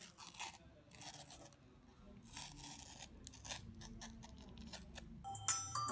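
Paper wrapper of an ice cream cone rustling and tearing in short bursts as it is peeled back. Music comes in near the end.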